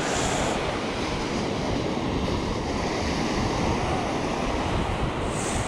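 Small waves breaking and washing up on a sandy beach, a steady surf hiss, with wind buffeting the microphone.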